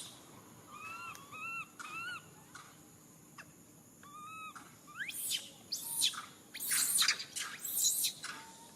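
Baby monkey crying: short arched whimpering calls, a few in quick succession about a second in and again around four seconds, then a run of shrill high squeaks, loudest in the second half.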